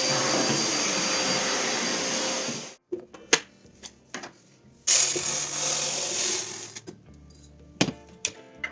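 Vacuum cleaner running steadily, cutting off abruptly about three seconds in. Then scattered clicks and knocks, with a second short burst of similar rushing noise in the middle.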